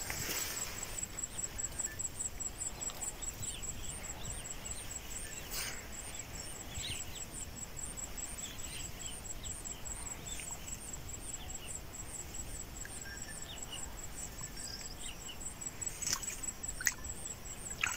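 Outdoor forest ambience: an insect keeps up a high, evenly pulsing call, about three pulses a second, while birds give scattered short chirps over faint background noise. A few sharp clicks come near the end.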